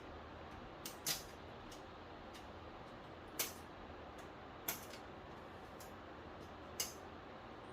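A few sharp, isolated clicks and light taps from handling parts during a TV repair, about four louder ones spread a second or two apart, over a steady background hiss.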